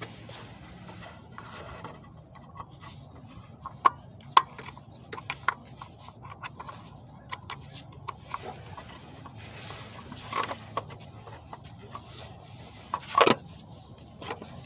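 Hands handling a new cartridge oil filter and the oil filter housing cap during an oil change: scattered light clicks, taps and rustling, with two sharp clicks about four seconds in and a louder rustle near the end.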